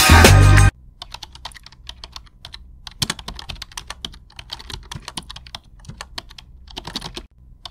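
Music cuts off abruptly within the first second, followed by computer keyboard typing: a fast, irregular run of key clicks, used as a typing sound effect.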